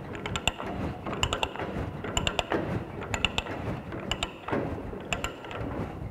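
Hand ratchet die stock cutting threads on a steel pipe: a short run of ratchet clicks about once a second as the handle swings back and forth, with a rough scraping between.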